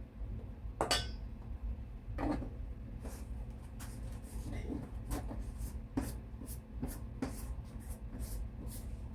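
Kitchen utensils and dishes being handled: a knock about a second in, another soon after, then a run of light clicks and taps, several a second, over a low steady hum.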